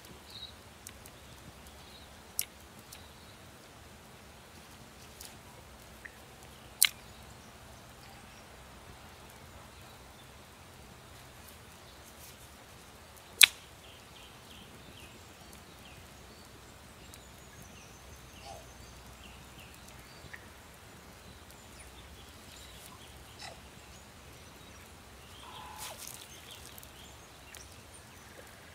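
Small fire of dry twigs burning in a pit, quiet apart from a few faint ticks and three sharp snaps of dry sticks, the loudest about 13 seconds in.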